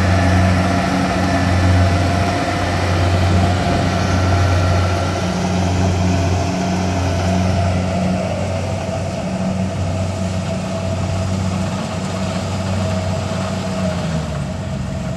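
Kubota DC-105X rice combine harvester running while it cuts and threshes rice: a steady engine hum with machinery noise over it. The engine note drops slightly near the end.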